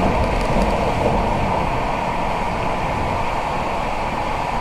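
Steady road noise inside a car at highway speed on a wet road in the rain: tyres on wet pavement and the running engine, with no breaks or changes.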